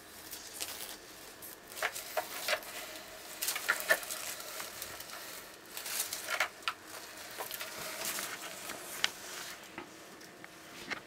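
Dumeril's monitor lizards moving through a terrarium, with irregular scratching and rustling as their claws and bodies drag over cork bark, soil and dry leaves.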